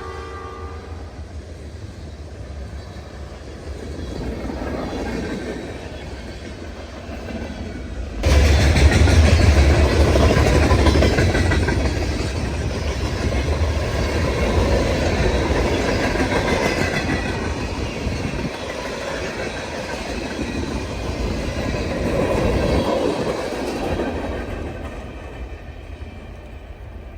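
Freight train rolling past, its wheels clattering over the rail joints in a continuous rumble. The last of a horn note fades in the first second, and the rumble jumps suddenly louder about eight seconds in, then eases off near the end.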